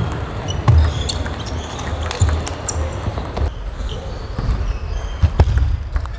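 Table tennis rally: the ball clicking off rackets and the table in quick, irregular strikes, with several dull thumps mixed in.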